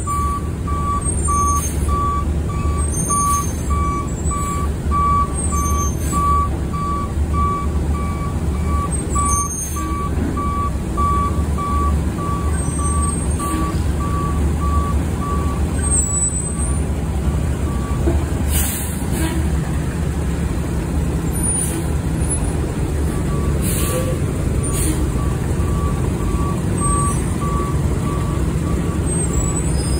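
Front-loading garbage truck's diesel engine running while its reversing alarm beeps steadily. The beeping stops for several seconds past the middle, with a couple of short air-brake hisses, then starts again.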